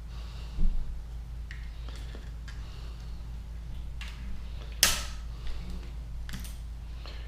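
Scattered clicks and knocks from bicycle parts and tools being handled during a teardown, with one loud sharp clack about five seconds in, over a steady low hum.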